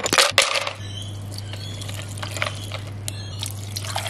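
Ice cubes clattering and clinking as a handful is scooped out of a freezer tray, followed by a steady pour of milk into a plastic blender cup over ice, with a few small clinks.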